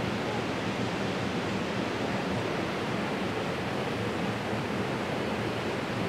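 Small waterfall cascading over boulders into a pool: a steady rushing of water.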